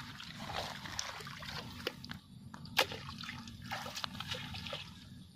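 Feet wading through shallow water and wet grass, splashing and rustling, with one sharp click about three seconds in.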